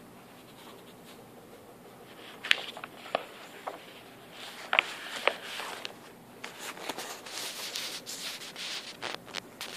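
Pen scratching on spiral-notebook paper, denser in the last few seconds, with a few sharp light clicks earlier on.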